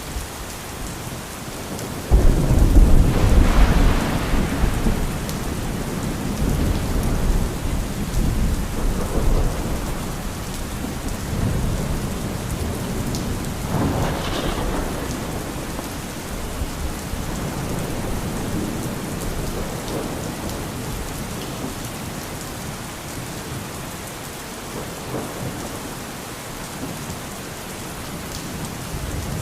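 Thunderstorm: steady rain with a sudden loud thunderclap about two seconds in that rolls on for several seconds, and a second, sharper crack of thunder about fourteen seconds in.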